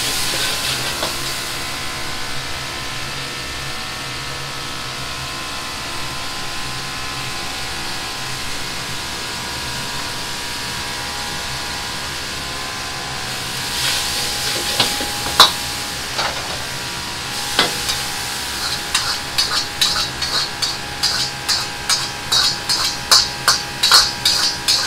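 Commercial wok burner running hard with a steady roar while a bean sprout and garlic chive stir-fry sizzles in the wok. A single loud metal clank comes past the middle, then near the end a metal ladle knocks against the wok in a quick rhythm, about two to three strikes a second, as the vegetables are tossed.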